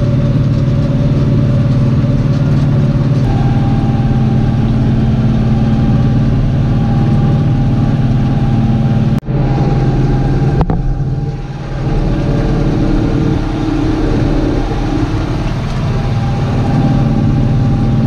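John Deere tractor's diesel engine running steadily under load, driving a PTO-powered hay mower cutting grass. The sound breaks off abruptly about halfway through and picks up again with a slightly different tone.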